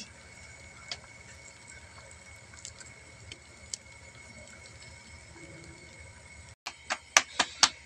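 Low background noise with a few faint ticks, then, from a little before the end, a quick run of sharp slaps, about four a second: hands patting a stuffed radish paratha flat between the palms.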